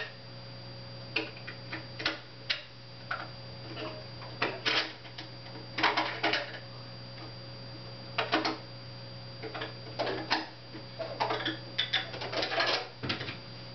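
Irregular short rustles and clicks of clothing being handled as a baby is dressed, over a steady low hum.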